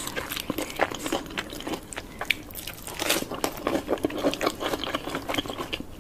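Close-miked eating: irregular crunchy bites and chewing of fried chicken, with many short crackling clicks.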